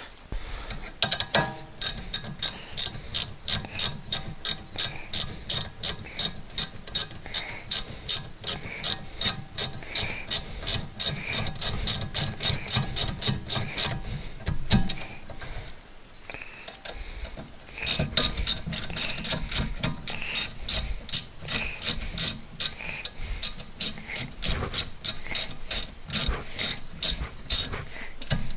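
Socket ratchet clicking in long, even runs as the brake caliper's guide-pin bolts are run in, with a short pause about halfway through.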